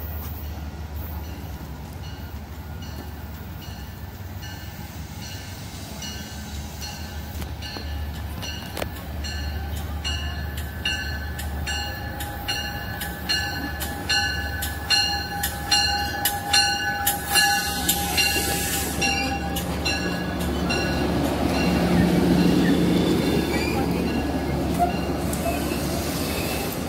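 Metro-North train arriving at the station: a run of rapid, regular clicks with thin high squealing tones, getting louder, then a fuller rumble from about twenty seconds in as the train draws alongside.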